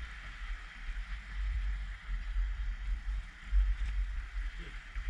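Wind buffeting the microphone in uneven gusts, over a steady wash of seawater.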